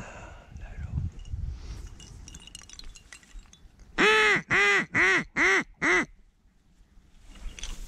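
Faint rustling and small clicks, then about four seconds in a run of five loud duck quacks, about two a second, each rising and falling in pitch, close by.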